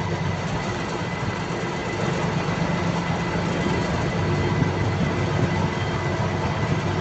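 Michigan 75 wheel loader's diesel engine running while the bucket is worked by its hydraulic lever and tilted open, a steady low hum with a thin steady high whine over it, a little louder from about two seconds in.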